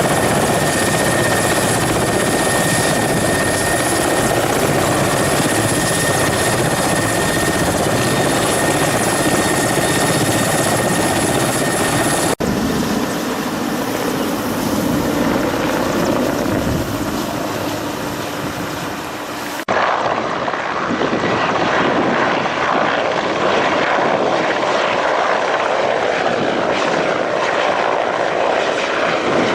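Steady engine and rotor noise of firefighting aircraft working a forest fire. It is heard in three clips cut together, with abrupt changes about 12 and 20 seconds in, and a thin steady whine in the first clip.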